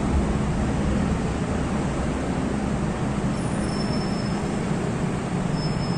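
An Island Line M-Train, a metro train, runs past the platform behind the screen doors as it slows into the station, a steady running noise with a low hum. Faint high thin whines come in from about halfway.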